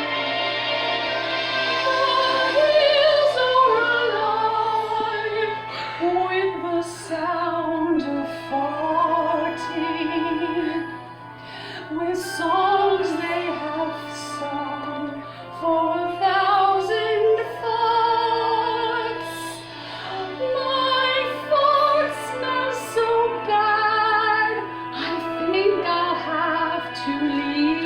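A woman's voice singing in an operatic style with strong vibrato, the melody moving between held notes, over sustained instrumental chords.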